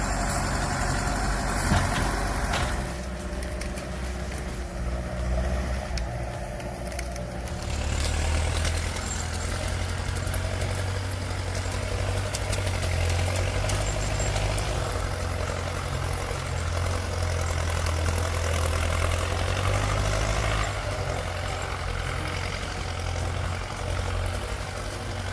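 Heavy diesel engine of logging equipment running steadily, a low rumble. The sound changes abruptly about three seconds in and again about eight seconds in.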